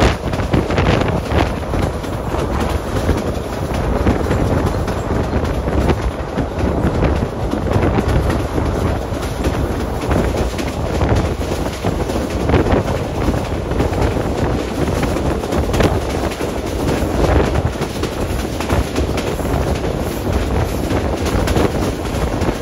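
SE9 passenger train running along the track, with the steady rumble and rattle of the moving carriage and wind buffeting the microphone.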